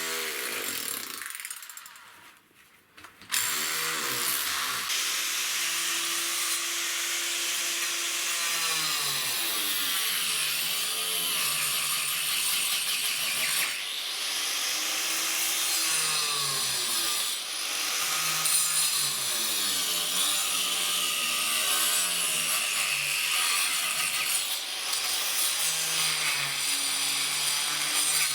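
Power saw cutting through wood. After a brief start it runs continuously from about three seconds in, its motor pitch rising and falling as the blade bites into the timber.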